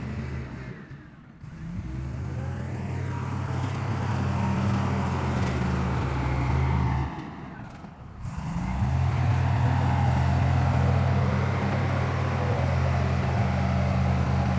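Heavy diesel engine of earthmoving machinery running steadily with a deep, even drone. The sound drops away briefly twice, about a second in and about halfway through, then comes back.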